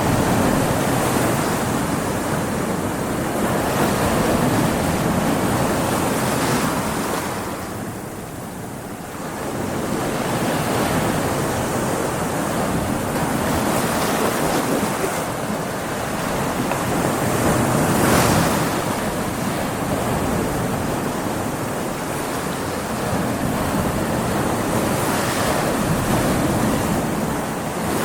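Ocean waves breaking against rocks, a continuous wash of surf that swells and eases, dipping about a third of the way in and surging loudest a little past halfway.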